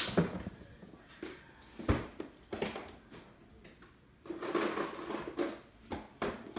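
Handling noises at an embroidery machine: scattered clicks and knocks, a sharper thump about two seconds in, and a stretch of rustling a little after the midpoint.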